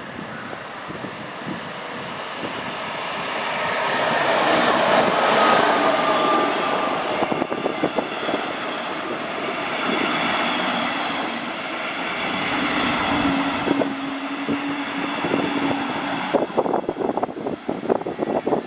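DB Regio double-deck regional train running in along the platform: the rumble builds over the first few seconds and holds as the coaches pass, with a brief high squeal about five seconds in and a steady low hum later. Near the end the wheels clatter over rail joints.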